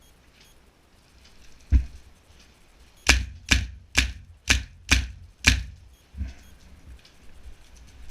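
Airsoft rifle firing single shots: one shot, then a string of six at about two a second, each a sharp crack with a low thump.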